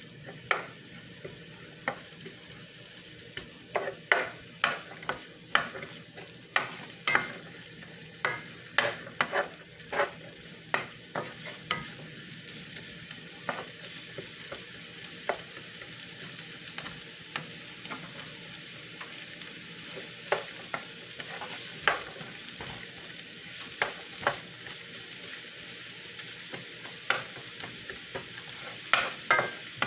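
Food sizzling steadily in a frying pan while a utensil stirs it, clinking sharply against the pan again and again. The clinks come thick and fast early on, then thin out to occasional taps.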